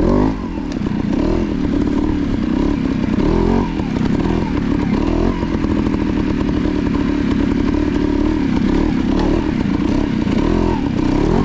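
Trials motorcycle engine running at low revs on a loose rocky line, with short throttle blips that rise and fall several times.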